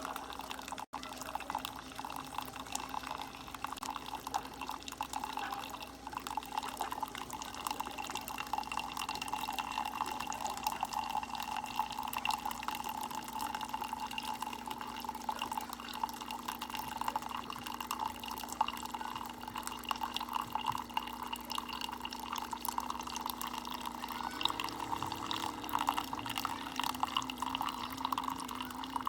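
Keurig K-Express single-serve coffee maker brewing a 10-ounce cup of plain hot water: a steady stream splashing and dripping into the cup over a low hum that steps up in pitch near the end.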